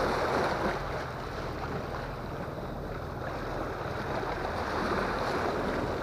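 Sea waves washing against the boulders of a rock breakwater, a steady rushing wash with wind buffeting the microphone.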